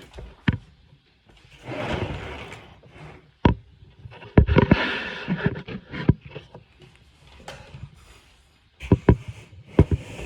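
Handling noises: a series of sharp knocks and clicks with stretches of scraping and rustling, as parts are moved around and set down.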